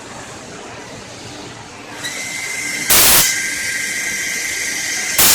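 Automatic CNC channel letter bending machine at work: a steady high-pitched motor whine starts about two seconds in and holds, with two short, loud bursts of noise, about three and five seconds in.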